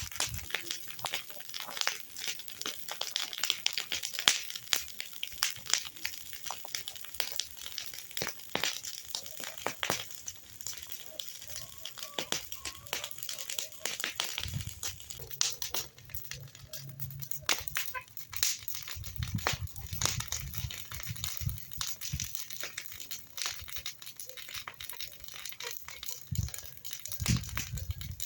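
Continuous rustling and crackling made of many small irregular clicks, with a few low rumbles now and then.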